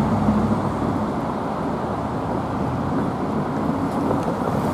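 Road traffic on a street: a passing pickup truck's engine hum fades away about half a second in, leaving a steady rumble of cars and tyres.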